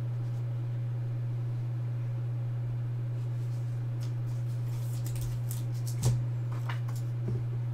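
A steady low hum, with faint handling sounds of trading cards and a single short tap about six seconds in as a card is set down.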